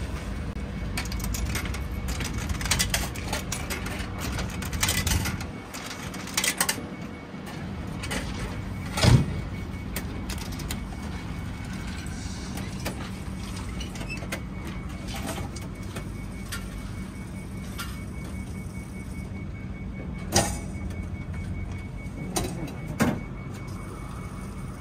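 Tempura udon and soba noodle vending machine working through its cooking cycle: a steady hum with scattered clicks and clunks, the loudest knock about nine seconds in.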